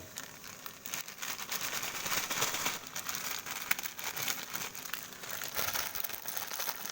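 Instant noodles being put into a pan of hot water: a steady crinkling and crackling with many small clicks.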